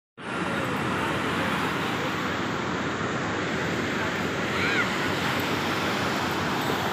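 Steady rush of surf breaking on a sandy beach, a continuous even noise, with a brief faint high-pitched rising-and-falling sound a little past the middle.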